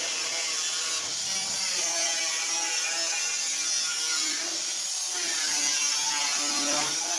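Handheld electric power tool cutting stainless-steel sheet: a continuous motor whine with a cutting hiss, its pitch wavering up and down as the load changes.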